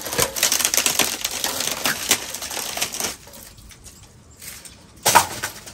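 Rotten, carpenter-ant- and termite-eaten rim joist wood cracking and crunching with many small snaps as it is pulled apart by hand, for about three seconds. One sharp knock about five seconds in.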